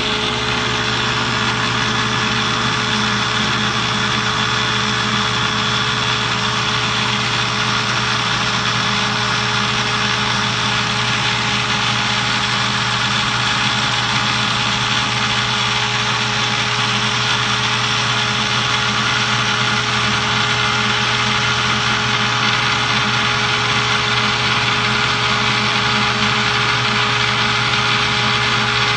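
Countertop blender motor running at a steady, unchanging pitch while melted butter is slowly poured in to emulsify a butter sauce.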